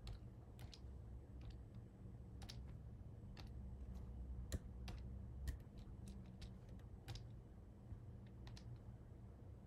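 Faint, irregular clicking of a computer mouse and keyboard, a couple of dozen clicks at uneven spacing, over a low steady hum.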